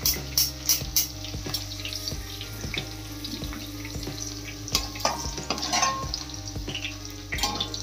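Okra frying in hot oil in a steel kadai, with a wire spider strainer and a perforated steel ladle clinking and scraping against the pan as the pieces are lifted out. Quick metal clicks come thickly in the first second, then sparser, with another cluster about five seconds in and near the end.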